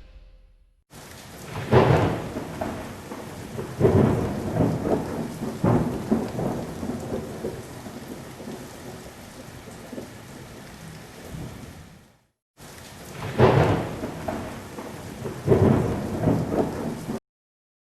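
Thunder rumbling over steady rain, with several loud peaks that swell and die away. The sound breaks off briefly about two-thirds of the way in, then two more loud rumbles follow before it stops near the end.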